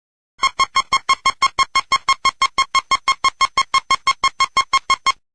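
Electronic alert tone in a mock Emergency Alert System broadcast: a single-pitched beep repeated rapidly, about six times a second, starting about half a second in and cutting off suddenly nearly five seconds later.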